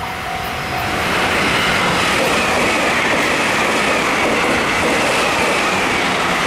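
Electric train passing close at speed: a steady rushing rumble of wheels on rail, with a high whine that falls slightly in pitch. A repeating tone at the start stops about a second in, as the train noise swells.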